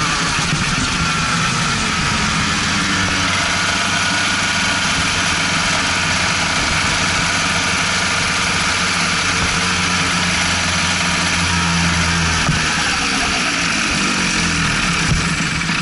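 Racing kart engine running at low, steady revs as the kart rolls slowly off the track into the pit area, with a steady rushing noise over it.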